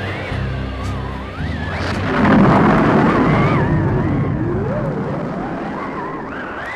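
Rock-and-roll record ending: the band's bass and guitar notes stop about two seconds in, and a thunder-crash sound effect swells up and slowly dies away under a wavering, sliding tone.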